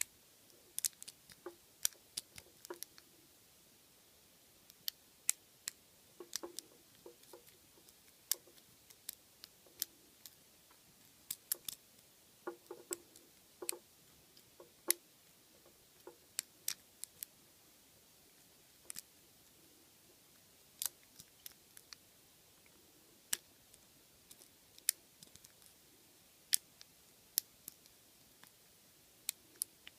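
Lock pick and tension wrench working the serrated pin stack of a Squire SAL/40 padlock: irregular sharp metallic clicks, sometimes several in quick succession, sometimes a second or two apart, as the pins are lifted and set.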